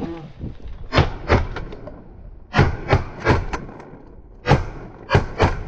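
A run of about eight sharp knocks and clacks, coming in small clusters of two or three, over a low rumble.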